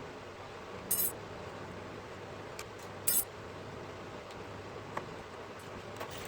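Two short, light clinks about two seconds apart, then a few faint ticks, over a steady hiss: small handling noises of hands working with tools.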